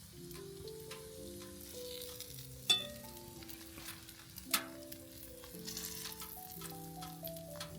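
Background music with a slow melody of held notes, over a faint crackling hiss with small ticks. Two sharp clicks stand out, about three and four and a half seconds in.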